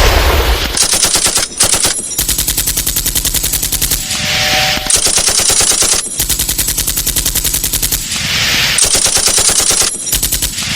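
Loud joke alarm-clock sound: rapid rattling runs like automatic gunfire, broken by hissing blasts that come back about every four seconds as the sound loops.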